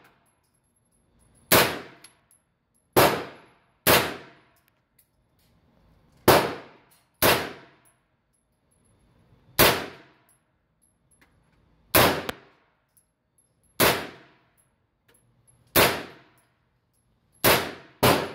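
Omni AR-9 pistol, a 9mm AR-pattern pistol, fired in slow single shots on an indoor range: eleven sharp reports spaced about one to two and a half seconds apart. Each shot ends in a short ringing echo off the range walls.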